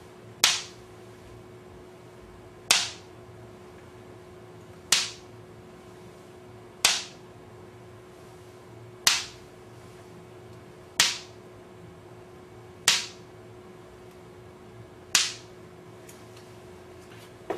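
Eight sharp knocks by hand on a blackboard, one about every two seconds, each one a key press on a chalk-drawn keypad that a single microphone taped to the board recognises by its sound. A faint steady hum runs underneath.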